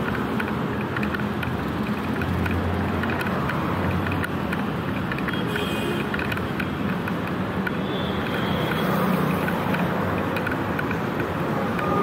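Street traffic going by on a city road: motor scooters and cars passing, a steady mix of engine hum and tyre noise that swells as vehicles come close.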